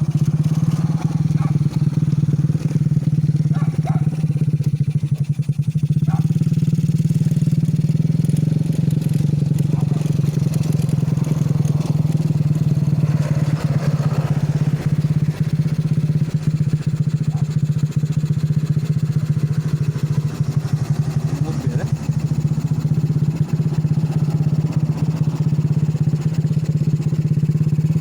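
Go-kart's 110cc Honda Grand single-cylinder four-stroke motorcycle engine running under way at a steady speed, its note holding an even pitch without revving up or down.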